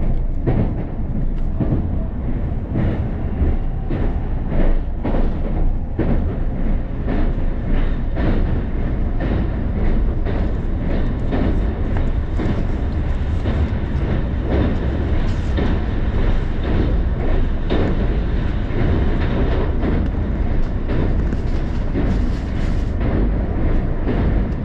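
Keisei Skyliner electric train running at speed, heard from inside the passenger car: a steady rumble of wheels on rail with frequent sharp clicks from the track.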